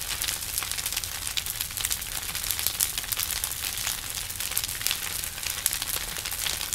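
Wooden frame structure burning in a bonfire, crackling steadily with many sharp pops over a low rumble.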